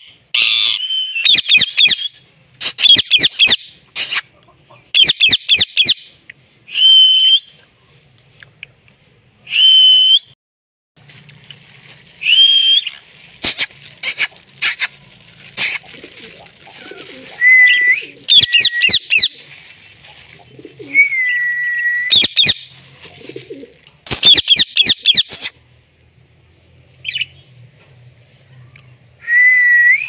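Indian ringneck parrot giving repeated shrill calls in short bursts: some are held whistles that bend in pitch, others are rapid trilling screeches. Sharp clicks come between them.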